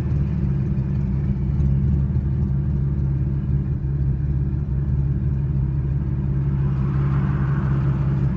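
Chevrolet Camaro engine idling steadily, running again after a blown fuse that had stopped it from cranking was replaced.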